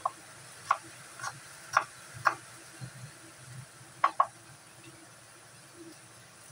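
Kitchen knife chopping on a round wooden chopping board: about seven sharp knocks at uneven spacing, the last two close together about four seconds in.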